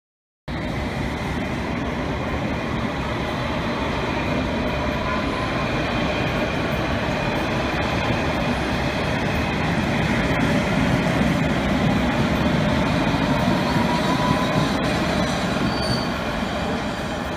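London Underground S-stock train running along a platform: a steady rumble of wheels on rail with faint wheel squeal. It starts suddenly, grows to its loudest about eleven seconds in and eases off near the end.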